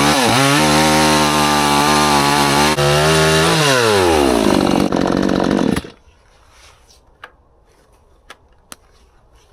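Hyundai P1 62cc two-stroke chainsaw running at high revs while cutting logs with a blunt chain; the revs dip briefly just after the start, fall away about three and a half seconds in, and the engine cuts off suddenly about six seconds in, leaving a few faint clicks.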